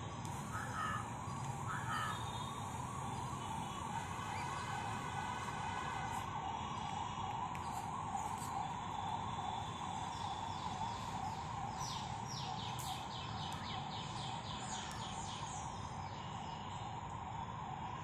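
A steady warbling tone, like a distant siren, runs throughout. From about ten seconds in, birds give a quick run of high, falling chirps, roughly four a second, for several seconds.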